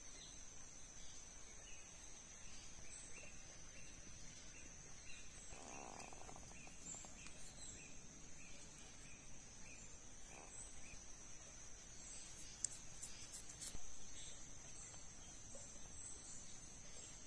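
Faint, steady high-pitched drone of insects such as crickets, with a soft chirp repeating about twice a second through the first half and a few light clicks about three-quarters of the way through.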